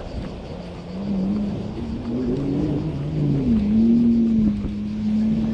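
Jet ski engine out on the water, its pitch rising and falling as it revs and eases off, then holding steady, over a low rumble.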